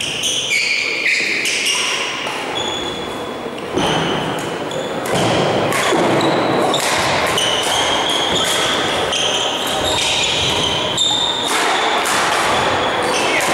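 A badminton doubles rally: rackets hitting the shuttlecock and sports shoes squeaking in short bursts on the gym floor, over and over.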